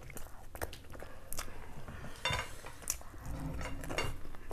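Eating sounds at a table: scattered sharp clicks and light clinks of china plates and tableware as food is picked up and eaten by hand, with mouth noises of chewing.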